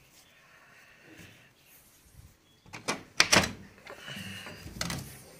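A curtain being pushed aside by hand at a barred window, with a quick cluster of sharp knocks and clatters about three seconds in and one more near the end.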